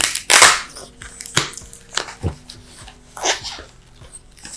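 Close handling noise from the plastic bag around a Razer Barracuda headset's detachable microphone: a long rustle at the start, then a few short rustles and clicks, mixed with a French bulldog sniffing at the bag. Faint background music underneath.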